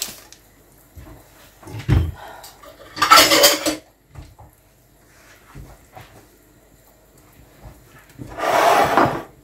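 Kitchen handling sounds from dishes and utensils: a dull knock about two seconds in, then two short hissing rushes of under a second each, one about three seconds in and one near the end, with a few light clinks between them.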